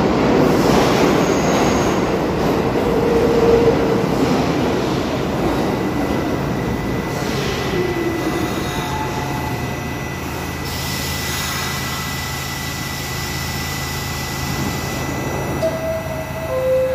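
R68A subway train rolling into the station and braking to a stop, with wheel and brake squeal early on. It then stands with a steady hum and a thin whine while its doors are open, and near the end a short two-note descending door chime sounds.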